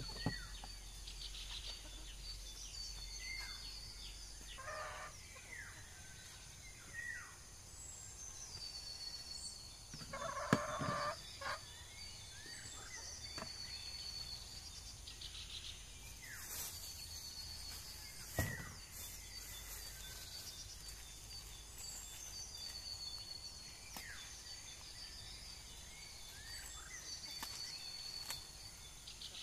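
Chickens clucking in a rural yard, with short high chirps repeating every couple of seconds and three sharp knocks, the loudest about halfway through.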